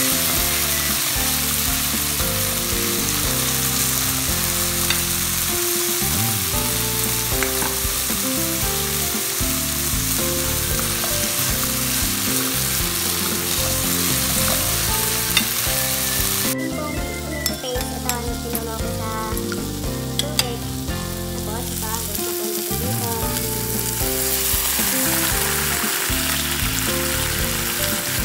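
Ground meat with onions and tomato sizzling in a frying pan as it is stirred with a silicone spatula. The sizzle quietens for several seconds about two-thirds through, with small scraping clicks, then picks up again.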